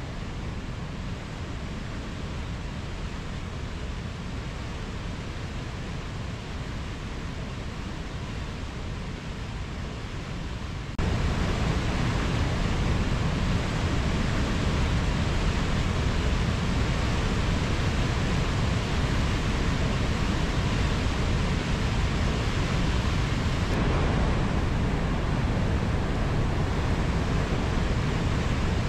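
Steady rush of falling water from a waterfall, with no music. About eleven seconds in it jumps to a louder, fuller rush, and it changes slightly again near the end.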